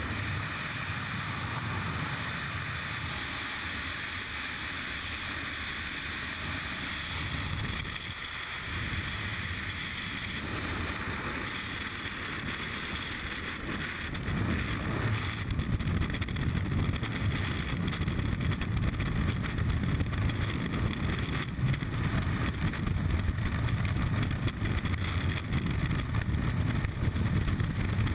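Aircraft engine and propeller noise at the open door of a jump plane, then freefall wind rushing over a helmet-mounted camera. The rushing grows louder around the middle.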